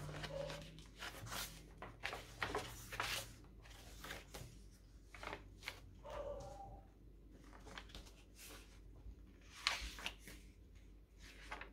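Paper pages of a handmade junk journal being turned and handled: a string of short rustles and flicks, roughly one a second, with a sharper flick just before the end.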